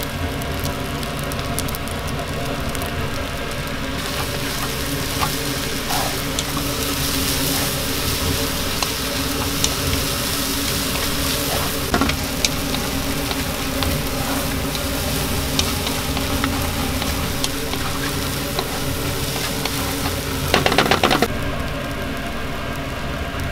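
Mi goreng noodles sizzling in a hot pan over a gas burner as they are stir-fried with a wooden spatula, with scattered knocks of the spatula on the pan. A quick rattle of clicks comes near the end.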